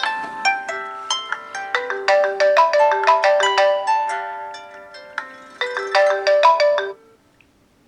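Mobile phone ringtone playing a quick tune of bright, chiming notes, which stops suddenly about seven seconds in.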